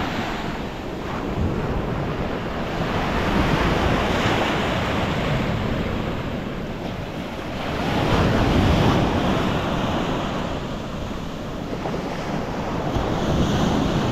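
Small sea waves washing onto a sandy beach, the sound swelling and fading every four or five seconds, with wind buffeting the microphone.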